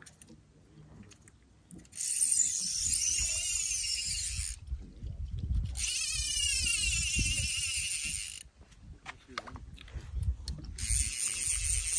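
Fly reel's clicking ratchet drag buzzing in three long spells as a hooked trout is played, its pitch rising and falling with the speed of the spool.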